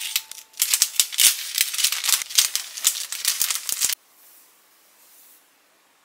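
Clear cellophane bag crinkling and crackling as it is handled, a dense run of sharp crackles that cuts off suddenly about four seconds in.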